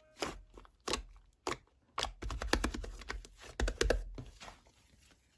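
Crinkly packaging being handled and torn in short, irregular bursts.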